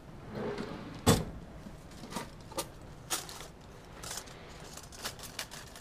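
A bench drawer pulled open with a sharp knock about a second in, then a scatter of light clicks and clinks as hands rummage through pens and small metal tools in a plastic basket inside it.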